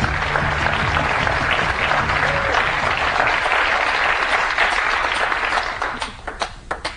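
Studio audience applauding, a dense steady clapping that thins out about six seconds in to a few scattered sharp claps. Low music tones sound under it in the first couple of seconds.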